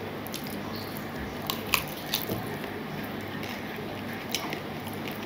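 Eating rice and curry by hand from a steel plate: fingers squishing and mixing the wet rice, with chewing and a few short sharp clicks about one and a half to two seconds in and again past four seconds.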